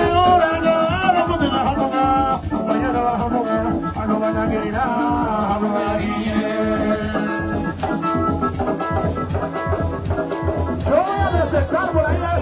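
Latin party music with a male singer, a steady beat and organ or keyboard backing, played loud over a sound system.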